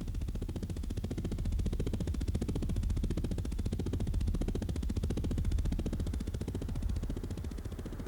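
A motor running with a fast, even throbbing pulse that swells and then fades.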